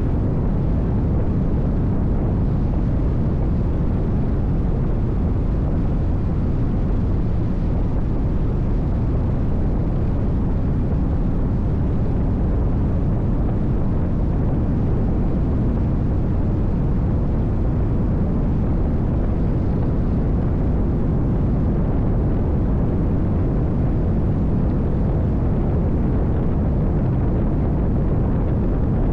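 Nitra 22 V8 race boat running at speed: a steady loud roar of engine, wind and rushing water that never lets up.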